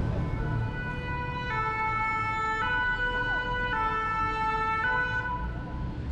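Two-tone emergency-vehicle siren of the European hi-lo kind, switching between its two notes about once a second. It is loudest in the middle and fades after about five seconds, over a low traffic rumble.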